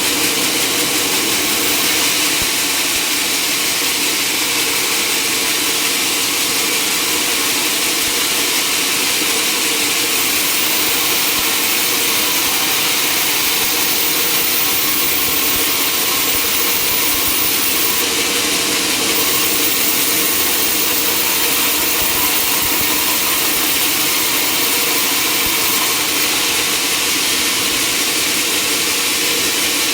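Sawmill machinery running steadily: a loud, continuous mechanical noise with a steady hum underneath and no breaks.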